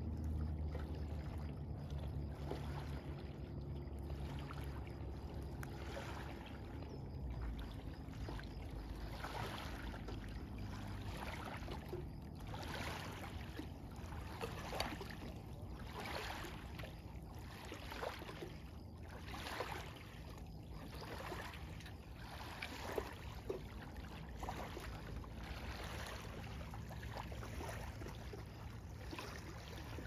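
Small waves lapping softly at a lakeshore, in soft swishes about once a second through the middle stretch, over a low rumble of wind on the microphone.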